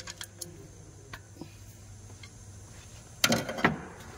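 Light metallic clicks from the exposed valve train of a Maruti Suzuki Alto 800 engine, its rocker arms and tappet adjusters worked with a hand tool. The tappets have too much clearance. A louder, denser burst of clatter comes about three seconds in.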